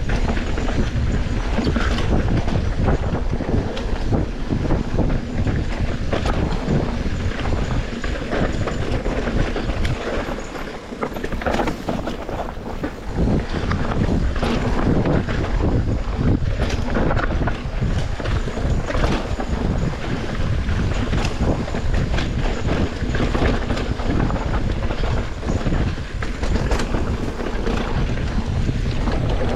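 Wind rumbling on the microphone, with irregular knocks and rustles of movement throughout.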